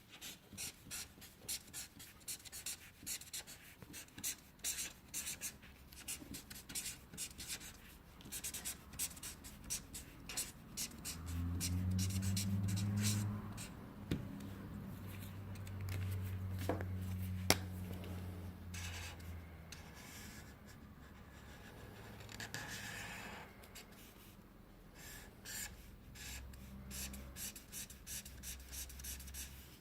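Faint rubbing and scratching with many short clicks, and a low hum that comes in twice for a few seconds near the middle.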